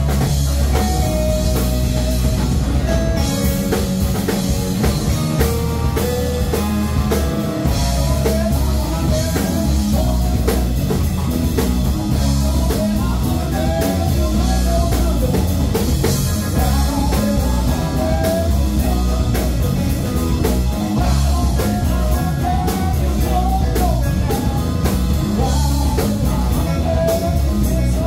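Live rock band playing loudly and steadily: drum kit, electric bass, electric guitar and a Yamaha CP4 stage piano.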